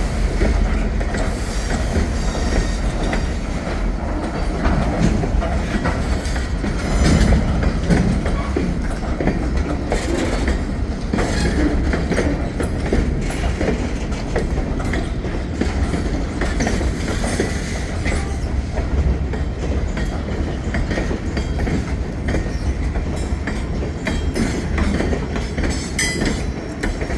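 Freight train rolling past on jointed track, its wheels clicking over the rail joints under a steady rumble, with occasional brief wheel squeal.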